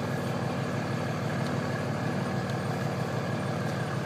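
Cummins 5.9-litre inline-six turbo diesel in a 2004 Dodge Ram 3500 idling steadily, heard from inside the cab.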